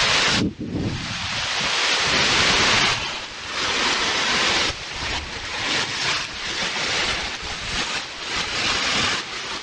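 Heavy rain falling in a downpour: a dense, steady hiss that jumps abruptly in level a few times, about half a second in, around three seconds and near five seconds, where the time-lapse audio is joined.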